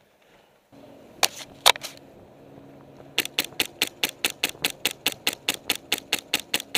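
Airsoft gun firing: three single sharp shots, then a fast, evenly spaced string of shots at about five a second, over a faint steady hum.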